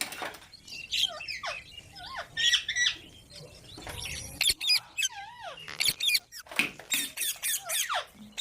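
Pet parrot calling: a string of short squawks and chirps with quick rising and falling pitch glides, then a fast run of sharp screeches near the end.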